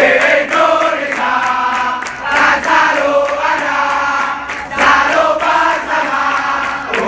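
A large crowd of football supporters singing a chant together, many voices in unison, loud and close.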